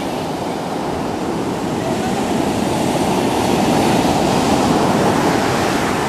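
Rough sea surf breaking on a sandy beach: a steady rush of waves that grows a little louder past the middle.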